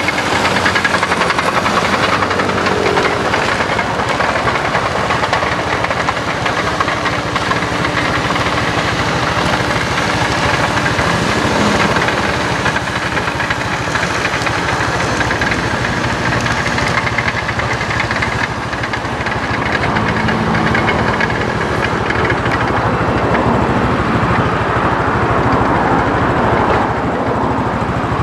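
Farm tractor's diesel engine running steadily under load as it tills dry ground, with a dense mechanical clatter from the working machinery.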